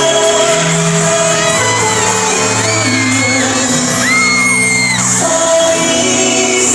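Live pop song performed in a large hall: held sung notes over the band, with a crowd of fans screaming and cheering throughout.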